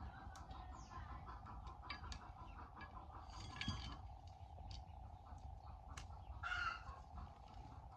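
Chickens clucking, with two brief calls about three and a half and six and a half seconds in, over scattered light clicks and taps and a faint steady hum.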